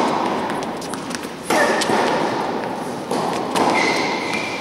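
Tennis balls being struck by rackets and bouncing on an indoor hard court, sharp knocks about every second and a half, each followed by a long echo in the large hall.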